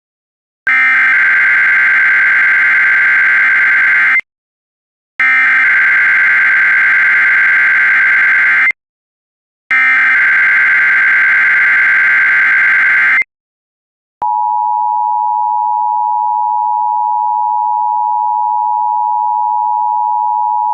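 Emergency Alert System header and attention signal. Three identical bursts of warbling SAME data tones, each a few seconds long with a short gap between them, are followed about 14 s in by the steady two-tone attention signal.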